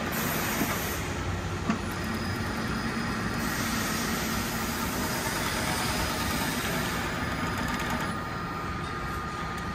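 Mattress tape edge machine's Weitu 300U chain-stitch sewing head running steadily while stitching binding tape along a mattress edge, a continuous mechanical whir with one sharp click about two seconds in.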